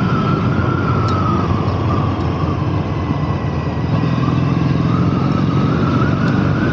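Triumph Bonneville T100's 865 cc air-cooled parallel-twin engine running under way, mixed with steady wind noise on the microphone; the engine note dips a little midway and rises again.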